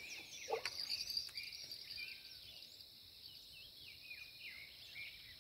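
Faint outdoor ambience: insects keep up a steady high-pitched drone while birds give repeated short chirps.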